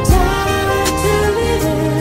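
Background music: a slow song with a gliding melody line over steady held tones, and two drum hits.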